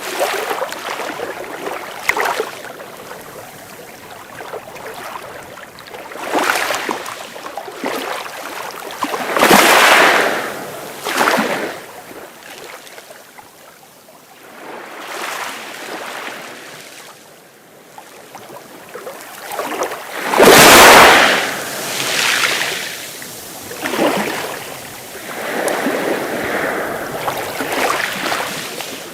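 Sea waves breaking and washing onto the shore in irregular swells, the loudest break about two-thirds of the way through.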